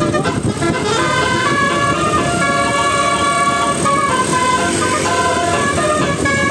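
Bus telolet horn playing a tune: several horn trumpets sounding steady notes that step up and down in pitch, often two or more at once.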